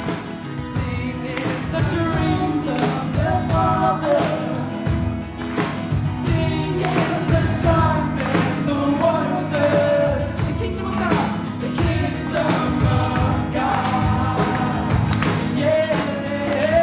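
Live band playing a song with sung vocals, acoustic guitar and drum kit. A sharp drum hit lands about every one and a half seconds.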